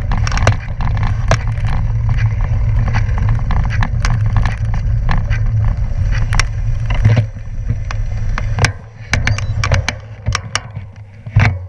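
Bicycle tyres rolling over a loose gravel road: a steady low rumble with many sharp clicks and rattles from stones and the bike. The rumble eases off about seven seconds in, leaving scattered clicks.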